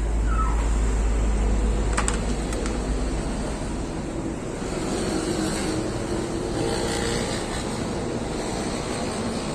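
Steady rumble of road traffic in the background, heaviest in the first few seconds, with a couple of sharp clicks about two seconds in.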